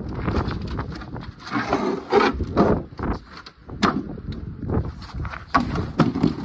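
Strong wind buffeting the microphone, with scattered knocks and scrapes as an aftermarket car fender is lifted and handled.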